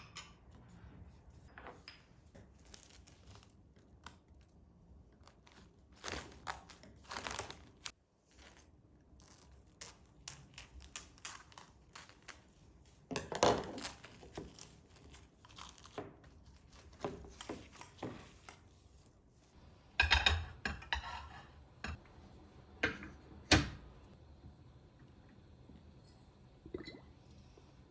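Scattered household handling sounds: irregular rustling and crinkling, with a few sharper knocks and clatters in the second half.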